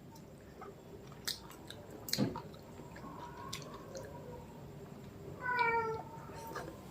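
Chewing and small mouth clicks of someone eating, with a soft knock about two seconds in. Near the end, a cat meows once, a short call.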